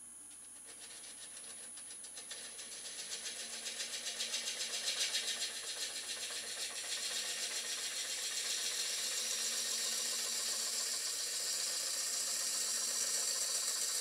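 Wood lathe spinning a slice of cherry log while a hand-held turning tool cuts the end grain, a rapid rhythmic chatter over a steady high whine. The cutting noise builds over the first few seconds and then holds steady.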